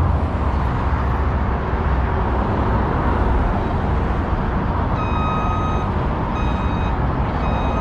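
Steady rumble of heavy road traffic. From about five seconds in, a construction vehicle's reversing alarm adds long beeps that repeat at a slow, even rate.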